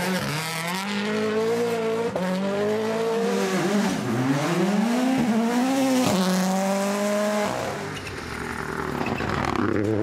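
A turbocharged four-cylinder rally car engine at full speed. It revs up and drops back with each quick gear change, over and over, then eases off to a lower, steadier note near the end.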